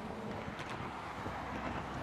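Wind buffeting the microphone over a steady low rumble, with a few faint ticks about half a second in.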